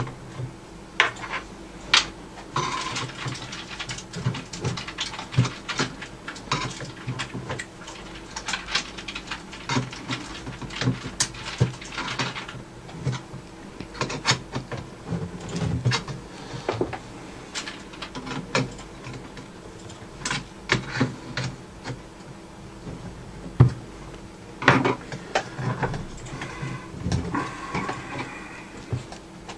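Irregular clicks, clinks and short scrapes of hands and a tool working on a Radiotehnika U-101 stereo amplifier's metal front panel and chassis, as the panel is taken off to reach the worn volume potentiometer.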